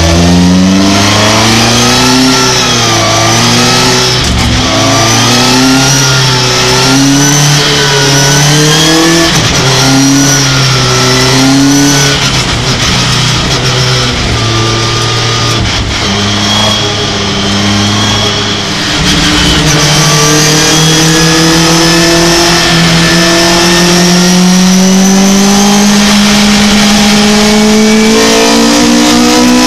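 Racing pickup truck's engine heard from on board at full race pace, revs rising and falling through a run of corners. In the second half the revs drop twice, then climb in one long steady rise as the truck accelerates.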